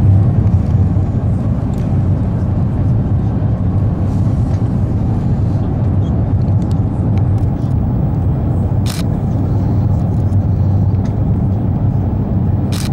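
Steady low rumble of an Airbus A350-900's cabin in flight, engine and airflow noise heard from a seat behind the wing. Two brief clicks sound in the last few seconds.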